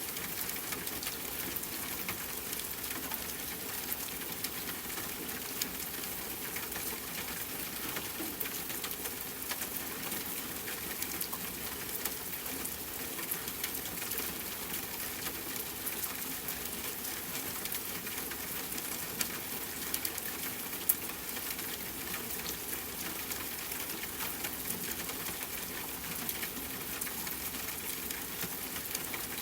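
Steady rain falling on a tent, mixed with campfire crackling: a constant hiss dotted with small sharp pops, one noticeably louder pop about two-thirds of the way through.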